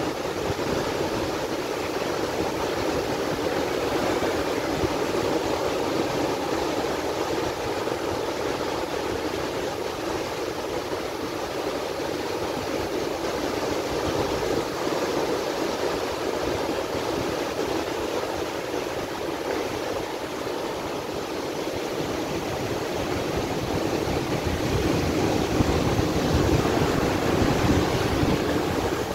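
Sea surf: waves breaking and foamy water washing in over the shore, a steady rushing that swells a little louder near the end.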